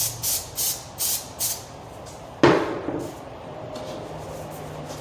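Quick spritzes from an aerosol can of 2P-10 CA glue activator, five short hisses in the first second and a half, then a single sharp knock about two and a half seconds in.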